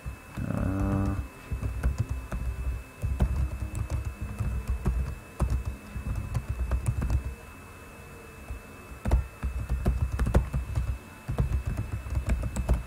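Typing on a computer keyboard in quick runs of keystrokes, with a pause of a second or two partway through.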